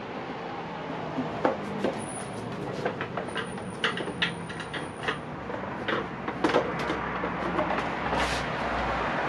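Irregular metallic clicks, clinks and knocks of hand tools and parts while the rear wheel of a Honda Navi is being loosened and worked off.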